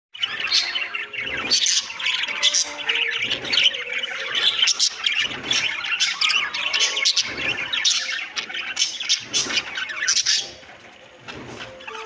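A flock of budgerigars chattering and squawking: dense warbling broken by many sharp chirps. The chatter drops away about ten and a half seconds in.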